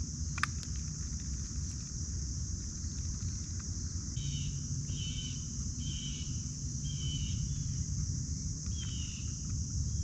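Riverside ambience: a steady high insect drone over a low rumble. There is one sharp click just after the start, and a bird calls about five times in a row from about four seconds in.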